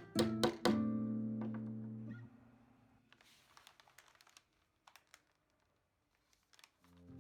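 Background music of plucked acoustic guitar that fades out after about two seconds, followed by a few faint ticks and a brief near silence before the music comes back near the end.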